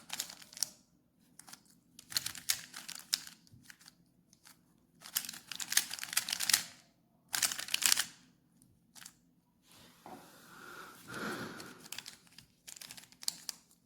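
A 3x3 Rubik's cube being turned by hand in quick runs of moves: bursts of rapid plastic clicking and clacking, with short pauses between them.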